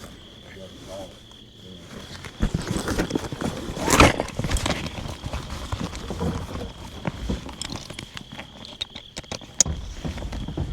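Irregular knocks, clicks and rustling of gear being handled, with footsteps; the loudest clatter comes about four seconds in. A faint steady high tone runs underneath.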